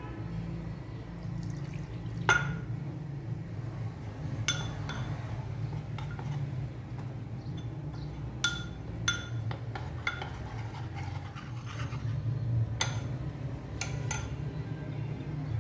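Water poured into a ceramic bowl of black-pepper gravy powder, then a long metal spoon stirring it into a batter, clinking sharply against the bowl several times with a short ring.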